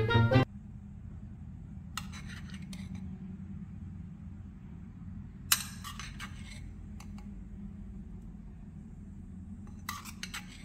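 Metal spoon clinking against a small stainless steel saucepan and saucer while spooning thick vegetable porridge. There are short clinks about two seconds in, a louder cluster around the middle, and a few more near the end, over a steady low hum.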